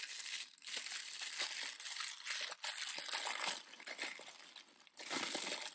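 Crinkly purple foil wrapper being crumpled and pulled open by hand: a dense, irregular crackle as the toy accessory packet is unwrapped.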